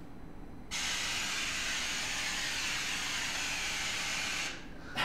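A steady hiss from a hand-held sound source, used to paint a trail on an acoustic camera. It starts about a second in and cuts off sharply near the end.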